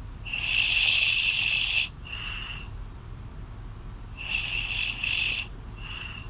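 A woman snoring, heard through a phone call: two loud snores about four seconds apart, each followed by a shorter, fainter breath.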